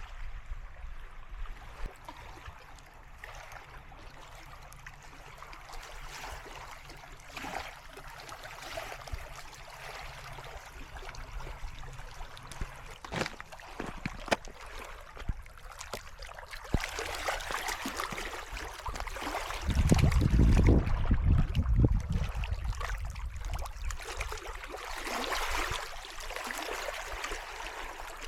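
Small wind-driven waves washing and lapping against a rocky lakeshore, with a low rumble of wind on the microphone about twenty seconds in.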